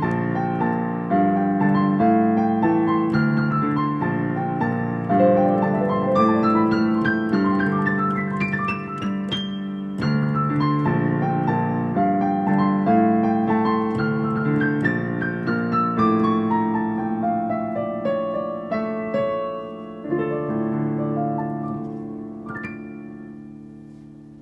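Piano playing a busy passage of many quick notes, getting steadily quieter over the last several seconds as the piece closes.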